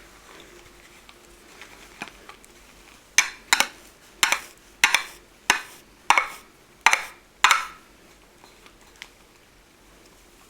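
Shaving brush whipping glycerin shaving soap into lather in a hand bowl: a run of about eight brisk strokes a little over half a second apart in the middle, with a few faint ones before.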